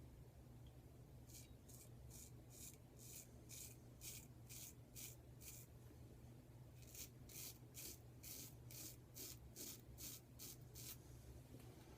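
Faint rasping of a vintage Adoration square-tip straight razor cutting through stubble over a lather-less shaving cream. It comes in quick short strokes, about two or three a second, in two runs with a brief pause between them.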